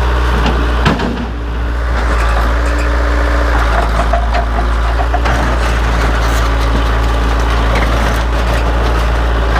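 Case 580 backhoe's diesel engine running steadily close by as it works on a truck body, with a single sharp bang about a second in.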